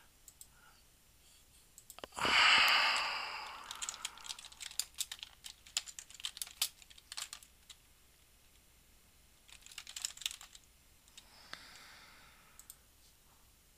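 Typing on a computer keyboard: a breathy exhale about two seconds in, then a quick run of keystrokes, and a few more keystrokes about ten seconds in.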